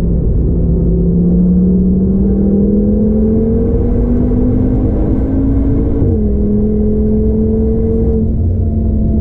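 Audi TT RS's turbocharged five-cylinder engine, stage 2 tuned, pulling hard under acceleration, heard from inside the cabin. Its note climbs steadily, drops sharply with an upshift about six seconds in, then holds nearly level, over road and tyre rumble.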